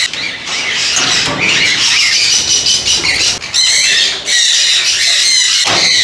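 A flock of small parrots, sun conures among them, squawking and chattering at once: many harsh, high calls overlapping.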